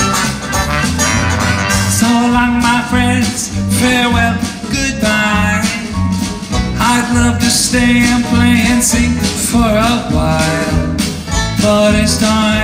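Live swing band playing an upbeat instrumental passage of the song before the vocal comes in, with strummed banjo, upright bass and drum kit keeping a steady beat under melodic lines.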